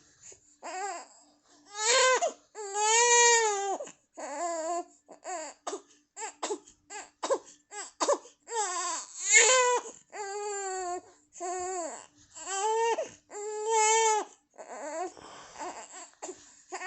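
A baby crying: repeated wailing cries, several long ones arching up and down in pitch, between many short sobbing cries.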